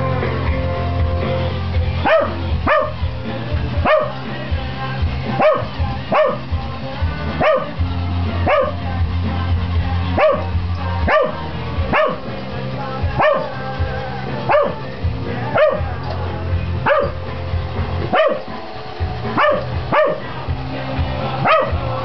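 Pembroke Welsh Corgi barking frantically at a Roomba robot vacuum, about one sharp bark a second from about two seconds in, over rock music.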